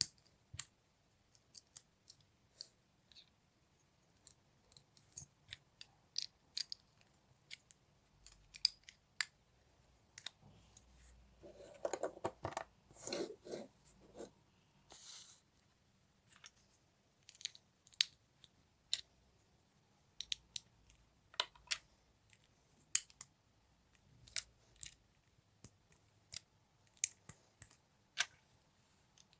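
Small hard plastic building pieces clicking and snapping together one at a time, with a few seconds of rattling as pieces are sorted or rummaged through about halfway in.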